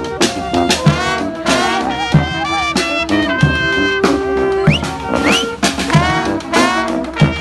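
Street brass band playing an upbeat tune: held and moving horn lines over a steady drum beat, with a couple of quick upward horn smears about five seconds in.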